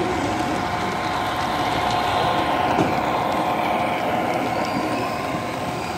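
Model steam locomotive and passenger cars rolling past on the track: a steady mechanical running hum with faint clicks, swelling to its loudest as the train goes by about two to three seconds in.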